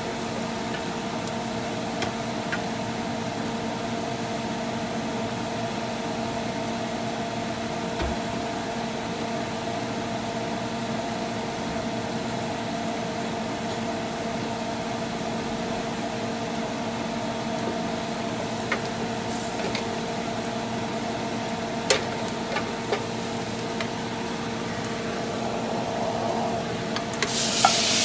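Garlic frying gently in butter in a hot grill pan over a steady hum, with a few light knocks. Near the end, raw black tiger shrimp slid into the pan set off a loud hissing sizzle.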